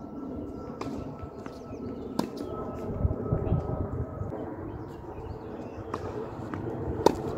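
A few sharp, isolated knocks of a tennis ball on a hard court, over steady outdoor background noise; the loudest comes near the end.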